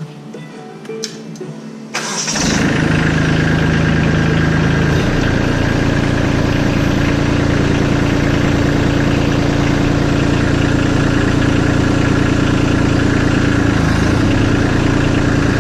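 Kubota LX2610 tractor's three-cylinder diesel engine starting about two seconds in and then running at a steady idle.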